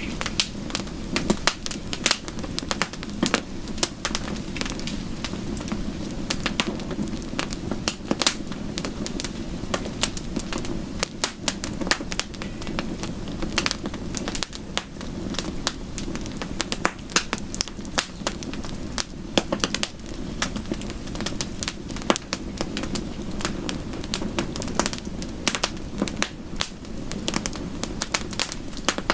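Wood fire crackling: dense, irregular pops and snaps, some louder than others, over a steady low rushing bed.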